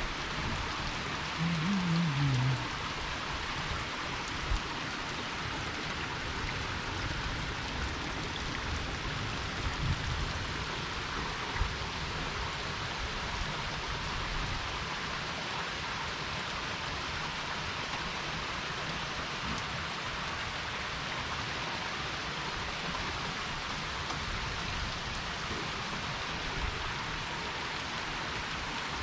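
Heavy rain falling steadily. About two seconds in, a brief low tone slides downward, with a few faint knocks later on.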